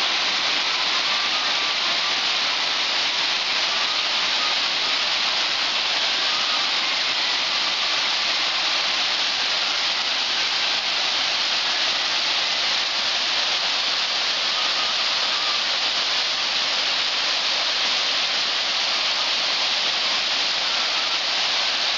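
Waterfalls cascading down a rock face onto the stony track bed, a steady, unbroken rush of falling water.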